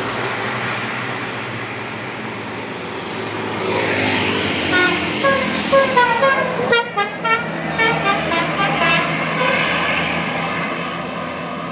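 Road traffic running steadily, with a vehicle horn tooting several short times in the middle.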